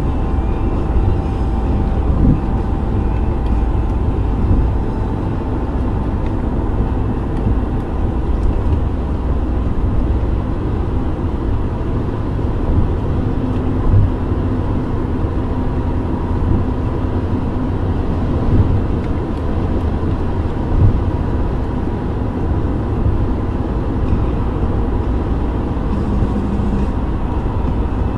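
Steady road and engine noise heard inside a car's cabin at freeway speed: a low, even rumble of tyres on pavement, with a few brief soft bumps.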